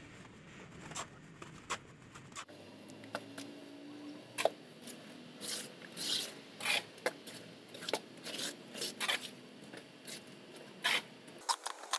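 A trowel scraping and stirring wet cement mortar in a mixing pan: a run of short, gritty scrapes, roughly one or two a second.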